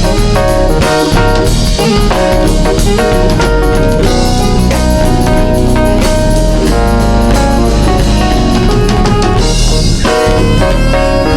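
A band playing an instrumental passage with no singing: drum kit and guitar.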